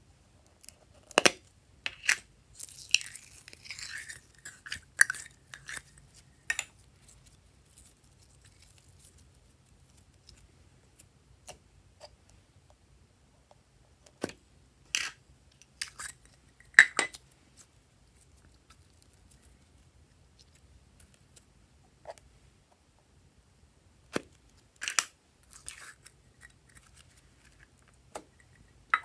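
Small plastic slime jars with ornate lids being handled and opened: scattered sharp clicks and knocks from the lids and containers, with a short stretch of crackling a few seconds in.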